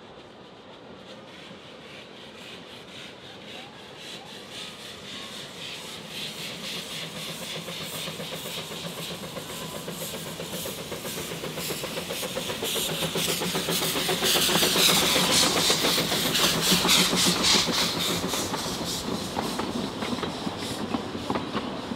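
Puffing Billy's narrow-gauge steam train approaching and passing: a rapid rhythmic beat with steam hiss that grows steadily louder, is loudest about two-thirds of the way through, then eases slightly.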